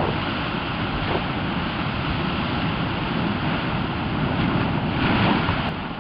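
Ocean surf rushing and breaking through a narrow channel between rock shelves, with wind rumbling on the microphone; the surge is loudest about five seconds in.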